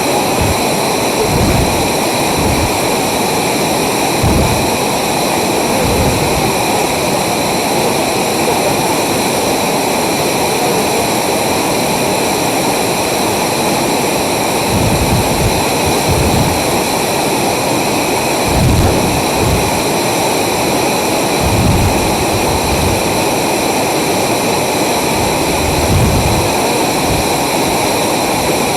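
Chelavara waterfall's roar of falling water, a loud, steady rushing. Low thumps on the microphone break through it now and then.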